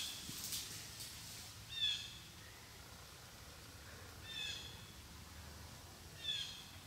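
A short, high call, falling slightly in pitch, repeated four times about two seconds apart.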